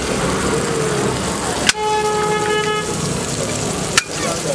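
A vehicle horn sounds once, one steady tone held for about a second, over the steady sizzle of food frying on a hot iron griddle. A sharp knock comes just before the horn and another near the end.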